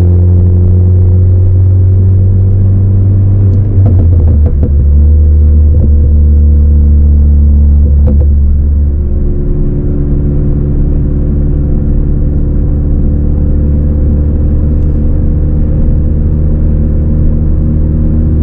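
Ford Focus ST's turbocharged 2.0-litre four-cylinder with an aftermarket Roush exhaust and a Stratified crackle tune, droning steadily while driving, heard from inside the car. The drone drops lower about four seconds in and eases off slightly around nine seconds, with a few brief crackles near four and eight seconds.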